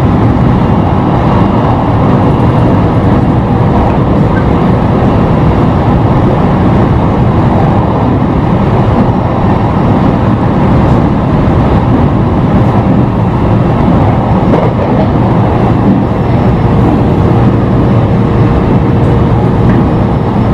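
Running noise of a JR East E721-0 series electric train heard from on board: a steady rumble of wheels on rail, with a faint steady whine from its Mitsubishi IGBT VVVF inverter and traction motors.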